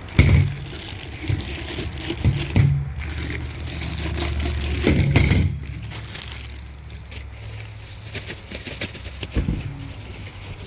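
Exhaust parts and their packaging being handled: several knocks and clunks with rustling, the loudest near the start and around five seconds in, over a steady low hum.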